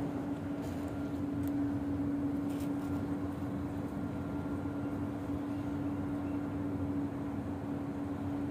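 Steady hum of a running machine, holding one constant low tone over a rumbling noise, unchanging throughout; a few faint clicks near the start.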